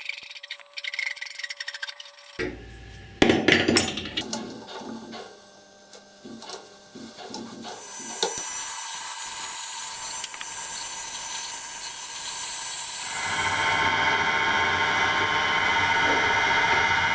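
A hacksaw cutting through a steel threaded rod held in a vise, with quick scraping strokes, then a few loud knocks. A metal lathe then runs steadily with the rod in its chuck, and from about thirteen seconds in a louder whine with several steady pitches joins it.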